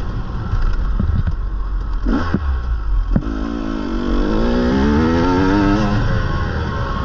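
Dirt bike engine being ridden hard on a motocross track: a short rev about two seconds in, then the engine note climbs steadily in pitch under acceleration for about three seconds before dropping as the throttle closes near the end. A low wind rumble on the microphone runs underneath.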